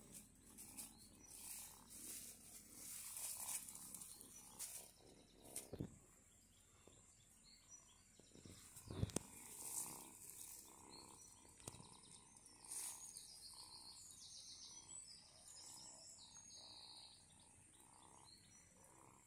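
Near silence outdoors: faint rustling in grass with a few soft knocks, and some faint short high chirps in the second half.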